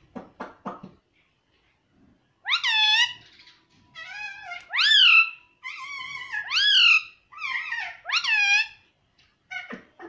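Indian ringneck parakeet calling: a quick run of chattering clicks, then after a short pause a string of loud, ringing calls that each dip and then rise in pitch.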